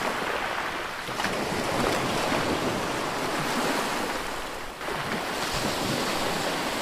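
Sea surf washing on a beach, a steady rush of waves that eases and swells again near the end, with wind buffeting the microphone.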